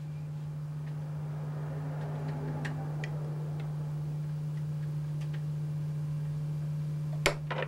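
A steady low electrical hum, with a few faint clicks and ticks from hands working thread and foam on a hook held in a fly-tying vise, and one sharper click near the end.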